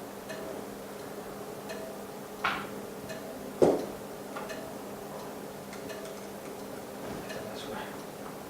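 Steady machine hum with faint, regular ticking, and a sharp knock about three and a half seconds in, after a shorter scrape or clack a second earlier.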